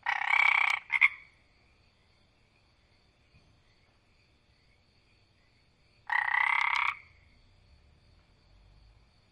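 A frog croaking: one call of under a second with a short extra note right after it, then a second call about six seconds later. A faint, steady high-pitched background sound runs between the calls.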